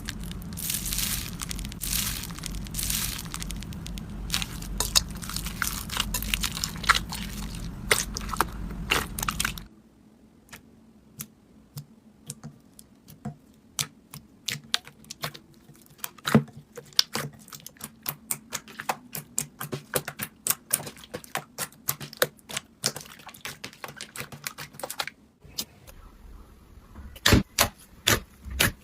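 Slime being squeezed and stretched by hand, crackling with many rapid, irregular small pops as air pockets burst. About ten seconds in, a low background hum stops and the pops carry on over a quiet background.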